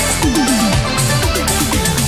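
Electronic background music with a steady beat and repeated falling bass slides.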